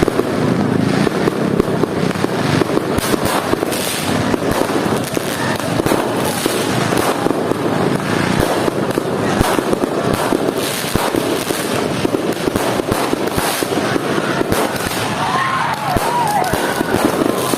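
Dense, continuous crackle and popping of many fireworks and firecrackers going off at once, with some short whistling glides near the end.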